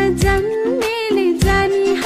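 Nepali pop song playing: a voice singing a melody over a drum beat.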